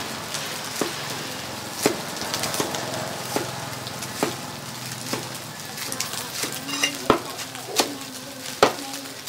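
Meat cleaver chopping leafy greens on a thick wooden chopping block: uneven knocks roughly once a second, over a steady background sizzle of frying.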